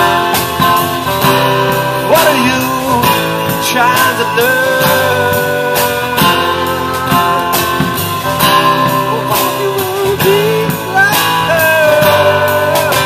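Live band playing an instrumental passage: a drum kit with cymbal hits keeps the beat under guitar, while a lead line bends and slides in pitch.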